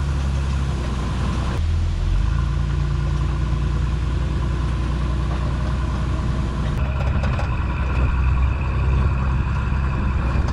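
Ford Pinto wagon's engine running at low speed while towing a small camper: a steady low drone.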